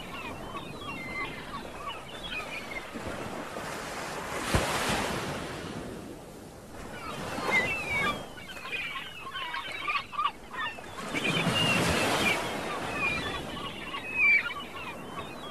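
Sea water sloshing and splashing around a camera as it moves between underwater and the surface, with louder surges of splashing about four and a half, seven and a half, and twelve seconds in.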